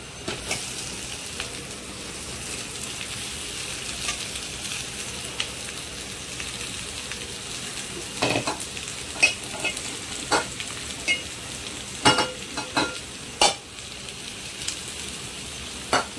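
Boiled potato pieces sizzling as they fry in hot oil with onion and spices in a pan. From about eight seconds in, a spoon knocks and scrapes against the pan as they are stirred.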